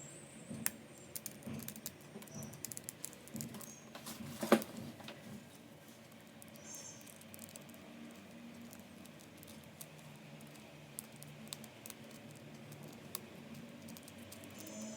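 Light, scattered clicks and taps of small model parts being handled and fitted together, with one sharper click about four and a half seconds in, then only faint background.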